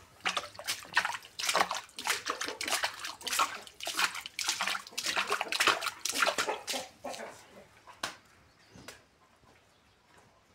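Water sloshing and splashing in quick, irregular bursts for about seven seconds, then dying down to faint.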